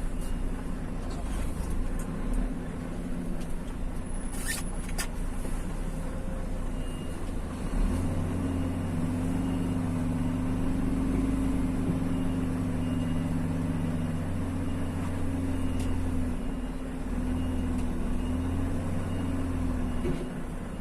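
Vehicle engine and road noise on the move, with a steady engine hum that strengthens about eight seconds in and eases near the end. A faint high beep repeats at intervals through the second half.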